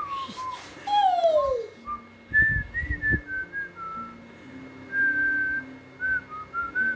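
Whistling: a string of short, clear whistled notes that wander up and down in a simple tune, with one lower note sliding down in pitch about a second in.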